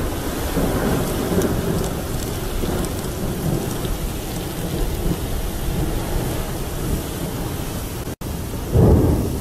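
Heavy rainstorm with strong wind: a steady rushing of wind-driven rain and a deep, rumbling wind noise. The sound cuts out for an instant about eight seconds in, then a louder gust comes just before the end.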